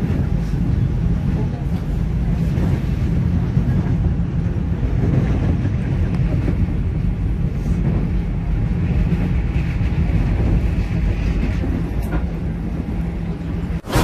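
Steady low rumble of a train running over a steel bridge, cut off by a sharp click near the end.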